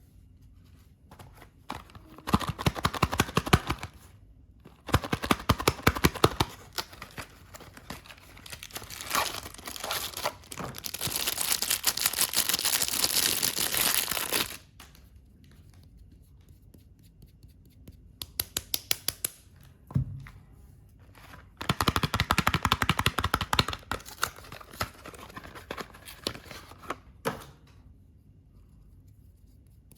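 Soap wrapping being torn open and crinkled by hand: several bursts of crackling rustle, a long tearing rustle through the middle, and a single knock about two thirds of the way in.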